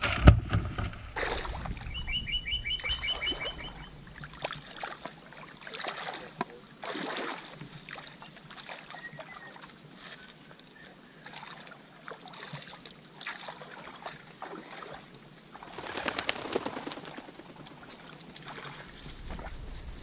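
A sharp knock near the start, then a bird's quick run of repeated high chirps for a couple of seconds, followed by splashing and sloshing footsteps of someone wading through shallow muddy water and brushing through vegetation.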